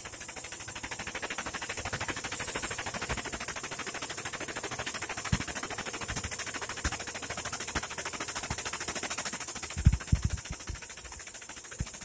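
Air-over-hydraulic bottle jack of a 50-ton press pumping with a rapid, even chatter as it forces a rusted press wheel along its shaft. A few sharp low knocks come from the loaded wheel and shaft, loudest about ten seconds in.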